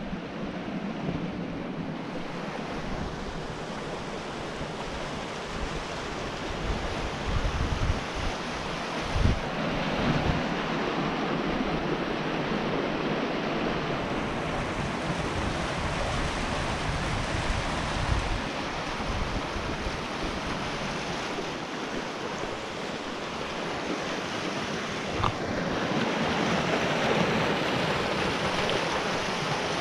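Pedernales River water rushing through narrow limestone channels and small cascades, a steady rushing noise, with wind gusting on the microphone now and then, most strongly about a third of the way in.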